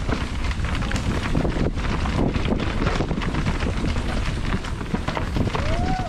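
Wind buffeting the microphone over the constant rattle and clatter of a downhill mountain bike riding rough trail, with many quick knocks. A short rising tone comes near the end.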